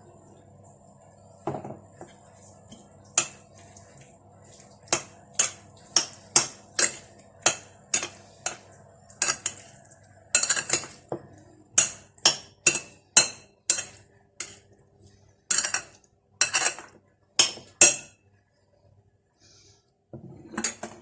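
A metal kitchen utensil knocks and clinks against dishes in short sharp strikes, about two a second in uneven runs.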